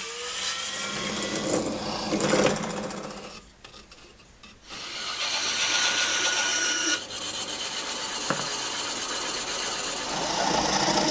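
Woodworking sounds in short edited clips: wood rubbing and being handled, a brief lull, then a bandsaw running and cutting plywood discs from about five seconds in. After a cut about two seconds later, steady machine noise carries on.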